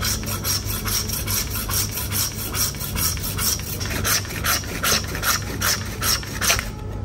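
Hand bone saw cutting through a beef leg joint: a steady run of rasping back-and-forth strokes, about three a second, growing sharper and louder about four seconds in.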